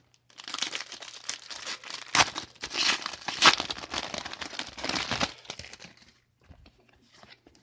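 Foil booster-pack wrapper of a trading card game being torn open and crinkled by hand: a dense crackle with a few sharp rips, dying away about six seconds in to a few faint ticks.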